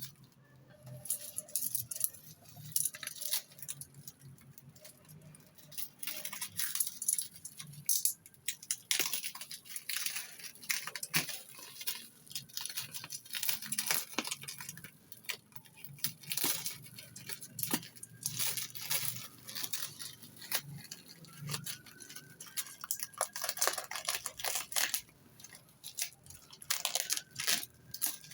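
Packaging around a motherboard box being torn and pulled open by hand: an irregular run of crackles, rips and clicks.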